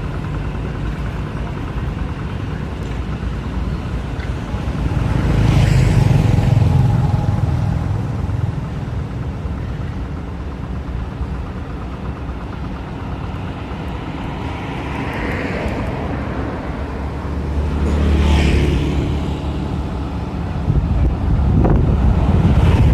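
Road traffic: a steady low engine rumble, with a vehicle passing about five seconds in and another about seventeen seconds in.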